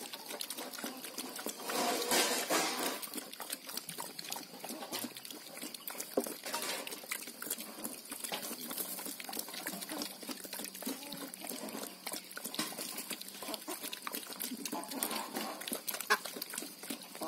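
Small black pigs eating wet feed from a wooden trough: continuous slurping, chomping and smacking at the slop, with a louder outburst about two seconds in.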